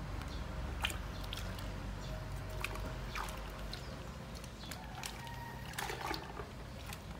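Hands sloshing and splashing soapy water in a plastic bucket while scrubbing a rooster, with scattered small splashes and drips.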